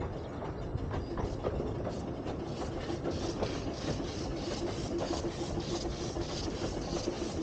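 12¼ in gauge miniature steam train running along, heard from on board, with a steady rhythmic beat of about three strokes a second. A faint steady tone joins in about halfway.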